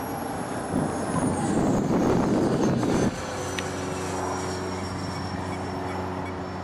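Electric ducted fans of a radio-control Su-30 model jet flying past: a high thin whine that slides down in pitch about a second and a half in. Under it is a loud rushing noise that stops abruptly about three seconds in, leaving a low steady hum.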